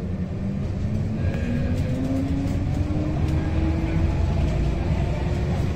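Low rumble of a moving vehicle, with a motor whine that rises steadily in pitch as it picks up speed.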